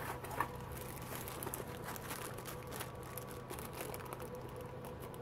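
Clear plastic zip-lock bag crinkling faintly in the hand as a bagged tool holder is picked up and handled, over a low steady electrical hum.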